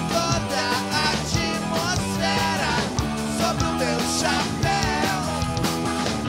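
Rock band playing live: electric guitars and drums, with a man singing the lead vocal over them.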